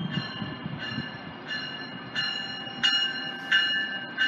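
Approaching GO Transit commuter train's warning bell ringing steadily, about three strikes every two seconds, getting louder from about two seconds in as the train nears.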